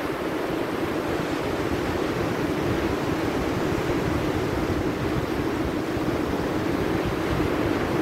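Sea surf washing steadily onto a sandy beach, with wind buffeting the microphone in a low, fluttering rumble.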